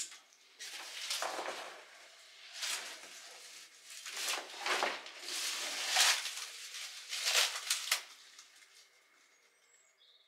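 Rustling and scraping as a person clambers out through a window: several irregular bursts of shuffling noise from clothing, a backpack and shoes on the sill and on debris, dying away about eight seconds in.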